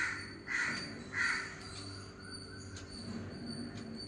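A crow cawing: three harsh caws about half a second apart in the first second and a half.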